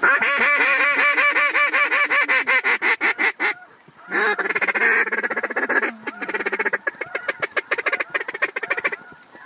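Loud, rapid goose calling: a dense run of honks and clucks that starts abruptly, breaks off briefly about three and a half seconds in, then resumes until near the end.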